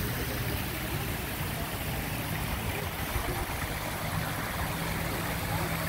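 Steady rushing of a small waterfall spilling over stacked stone ledges.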